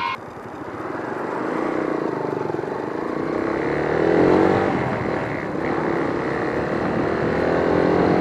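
Motorcycle engine running under way, its pitch climbing for about four seconds, dropping briefly, then climbing again with the throttle.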